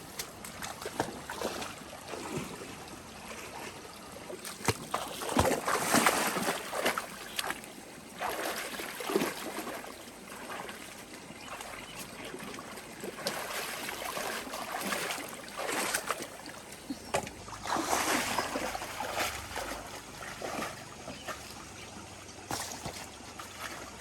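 Water splashing and sloshing in irregular surges over a steady trickle of running floodwater.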